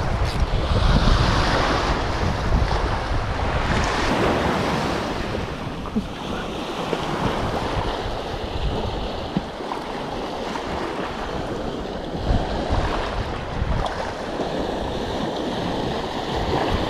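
Small waves washing onto a rocky shore, rising and falling in slow surges, with wind buffeting the microphone.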